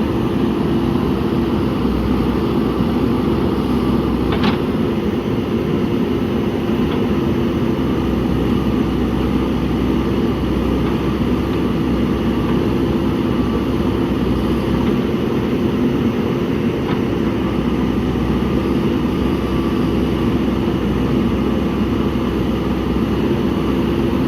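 JCB backhoe loader's diesel engine running steadily, a constant drone, with a brief sharp click about four seconds in.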